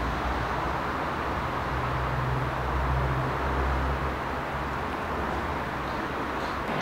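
Steady outdoor urban background noise: an even hiss with a low hum underneath that swells a little about two to four seconds in.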